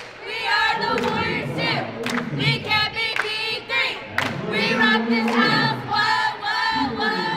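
A squad of cheerleaders chanting a cheer in unison, voices shouted together in short phrases, with sharp hand claps between the words.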